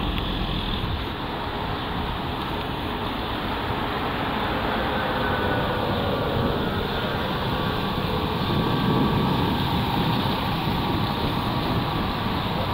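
Street traffic: a steady mix of vehicle engines and tyre noise from the road through the intersection, with a faint engine hum coming up about halfway through.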